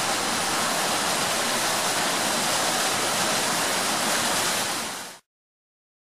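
Clear shallow stream flowing over stones: a steady rush of running water. It fades quickly and cuts off about five seconds in.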